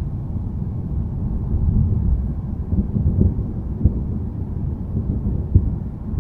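Thunderstorm rumbling low and continuously, with two brief thumps in the second half.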